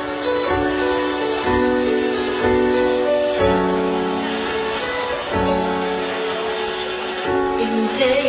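Instrumental intro of an Arabic love song: held keyboard chords that change about once a second over a soft low beat.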